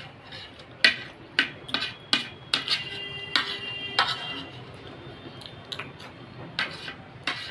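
Metal spoon clinking and scraping against a ceramic plate while scooping up khichdi: a run of sharp clinks, some with a brief ring, most of them in the first four seconds, then a couple more near the end.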